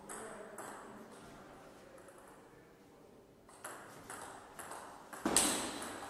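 Table tennis rally: the ball clicking off paddles and the table, a couple of strokes near the start, then a quicker run of hits about twice a second in the second half, with a louder thump a little after five seconds in.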